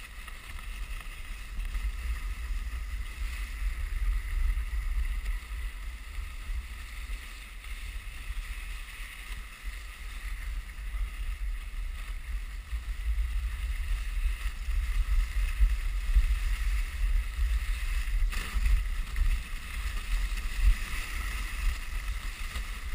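Dog sled gliding along a packed snow trail: the runners hiss steadily over the snow, under a fluctuating low rumble of wind and motion on the microphone.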